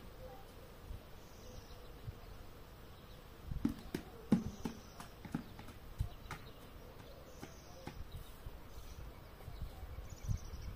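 Irregular knocks and low thumps, bunched about four to six seconds in, over a faint high chirp that repeats every two to three seconds.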